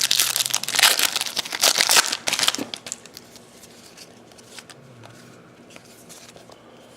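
Hockey card pack wrapper crinkling as it is torn open and crumpled, loud for about the first two and a half seconds, then quiet with a few light ticks.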